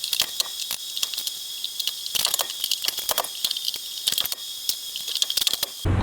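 Dense high-pitched crackling and rustling with many sharp clicks over a steady hiss, thin with almost no low end; it cuts off abruptly near the end.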